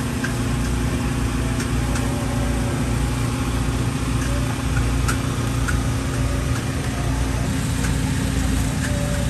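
Steady low hum of a running engine, with scattered light clicks and knocks.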